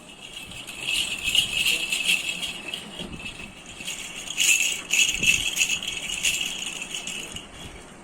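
A baby's toy rattle shaken, jingling in uneven spells, with two louder bouts of shaking before it dies away near the end.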